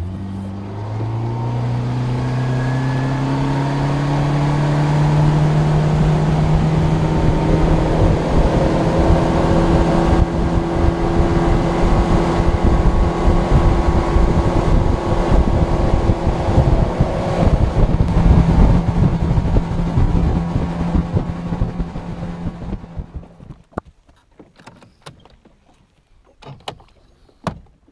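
Boat's outboard motor accelerating, its pitch rising over the first few seconds, then running steady at speed before it dies away about 22 seconds in. A few sharp clicks and knocks follow near the end as the bow-mount trolling motor is handled.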